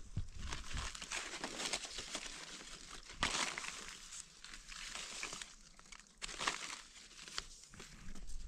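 Dry leaf litter rustling and crackling as a hand pushes through it and a knife cuts a mushroom out of the forest floor. The rustles come irregularly, with a louder crunch about three seconds in.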